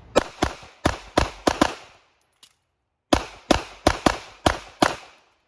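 Pistol shots in two quick strings of six, with a pause of about a second between the strings.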